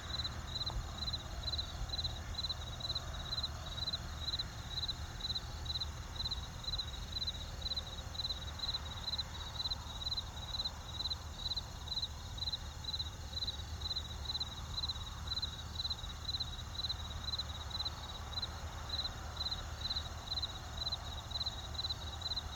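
Insect chirping steadily in an even rhythm of about three high chirps a second, over a low steady rumble.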